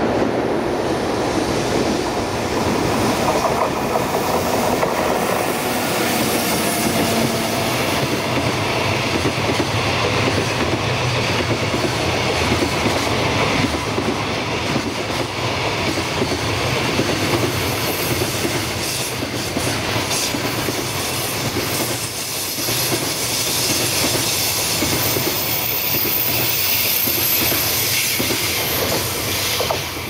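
Electric-locomotive-hauled container freight train running past close by, its wheels clattering steadily over the rail joints in a clickety-clack. A faint high wheel squeal comes in near the end, just before the sound drops off as the last wagon goes by.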